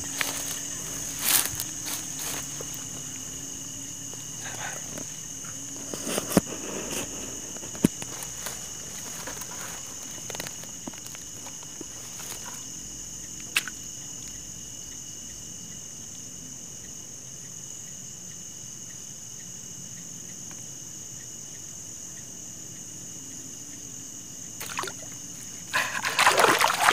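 Steady chorus of night insects, a continuous high-pitched trilling, with a few short sharp clicks and rustles scattered through it.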